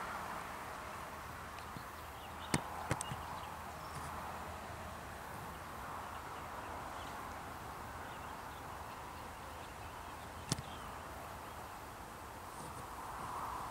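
Steady outdoor background hiss with a few sharp clicks: one about two and a half seconds in, a quick pair just after it, and one more near ten and a half seconds.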